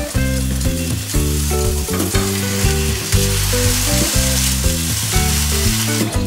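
Halved zucchini searing in hot olive oil in a stainless steel frying pan, a steady sizzle that swells around the middle as the pieces are pressed down. Background music plays underneath.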